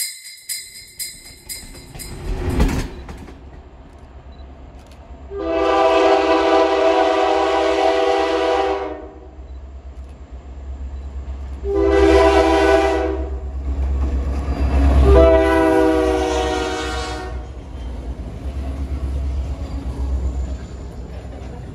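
Locomotive multi-chime air horn sounding a long blast, a short blast and another long blast, over the steady low rumble of a train running on the rails.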